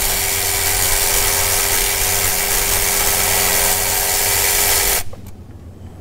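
Power ratchet running steadily, a hiss with a steady hum, as it spins loose an 11 mm clamp on the turbo's charge air elbow; it cuts off about five seconds in.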